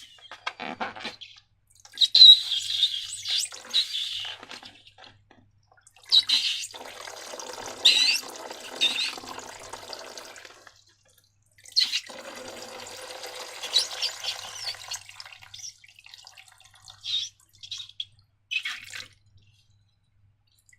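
Slime squelching wetly as it is squeezed out of a balloon, in three long stretches, followed by a few short sticky clicks near the end.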